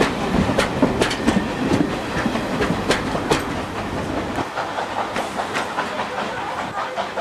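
Railway carriage wheels clicking irregularly over rail joints, with a steady rolling rumble. The rumble falls away about halfway through, and the sound fades as the train draws away.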